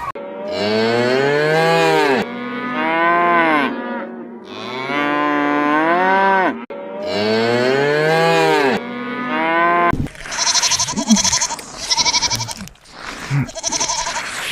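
A cow mooing: three long, loud calls that rise and then fall in pitch. From about ten seconds in, a goat bleats in short, quavering calls.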